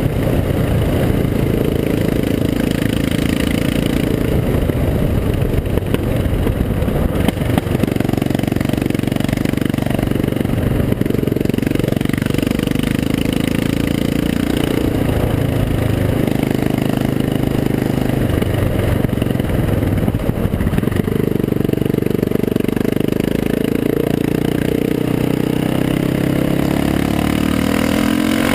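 Yamaha XT660R's single-cylinder four-stroke engine running loud through an open exhaust, one of its two mufflers opened up, while being ridden. The engine note rises and falls with the throttle several times, with a rise near the end.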